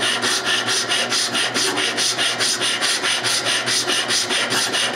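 Hand rasp filing the end of a wooden box side in quick, even strokes, about five a second, trimming it down to match the shorter side.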